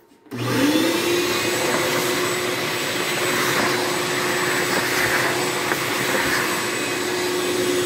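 Vacuum cleaner switched on about a third of a second in, its motor spinning up with a quickly rising hum and then running steadily, clearing sawdust off a freshly CNC-carved relief sign.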